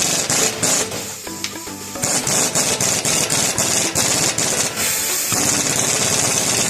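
Power tool running in uneven bursts with a rattling, hammering sound and a high hiss, during work on a Dana 30 axle's pinion.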